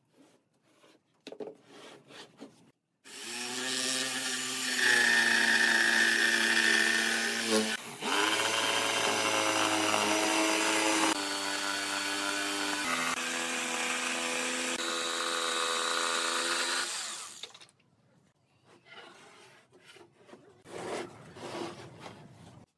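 Electric jigsaw cutting a curve through a pine board. The motor whine starts about three seconds in, shifts in pitch a few times as the cut goes on, and stops a few seconds before the end. Before and after the cut there are faint knocks and rubs from the board being moved on the bench.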